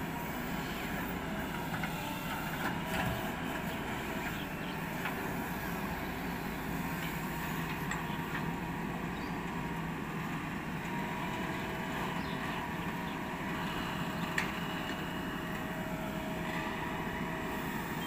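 JCB 4DX backhoe loader's diesel engine running steadily under load as the backhoe digs and swings its bucket to dump soil into a tipper truck, with a few short sharp knocks, the loudest about 14 seconds in.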